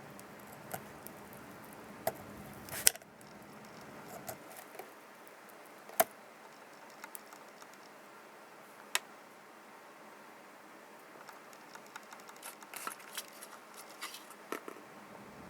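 Hands working with small hard parts and tools during a radio repair: scattered light clicks and taps. There are a few sharper single clicks about two, three, six and nine seconds in, and a run of small ticks near the end.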